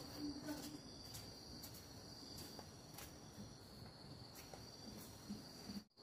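Faint, steady high-pitched trill of forest insects, with a few light clicks and a faint murmur of voice at the start. The sound cuts out completely for a moment near the end.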